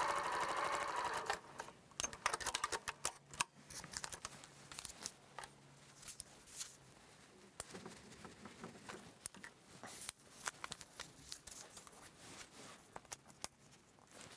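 Sewing machine stitching a seam, running steadily for about a second and a half and then stopping. After that come faint scattered rustles and light taps as paper-pieced fabric and a plastic quilting ruler are handled on a cutting mat.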